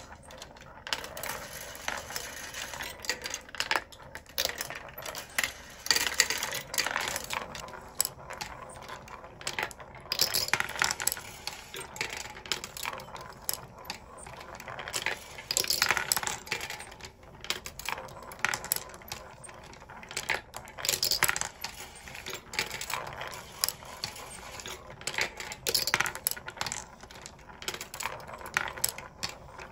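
Glass marbles clicking and clattering through a wooden marble machine, circling in a wooden funnel bowl and rattling along wire tracks. The clatter swells about every five seconds.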